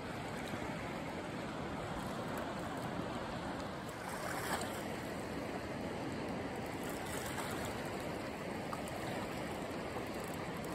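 River water flowing steadily over rocks and riffles along the bank.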